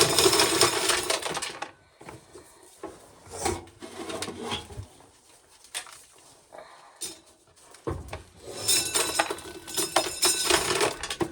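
Corn sheller stripping kernels from an ear of corn, a dense rattling clatter of kernels and cob against the mechanism. It runs twice: briefly at the start, then again for about three seconds near the end, with scattered clicks in between.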